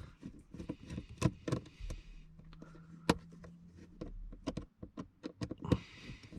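Scattered small clicks, taps and scrapes of a screwdriver working the screws that hold a car's instrument cluster in the dashboard, with two sharper clicks about a second and three seconds in.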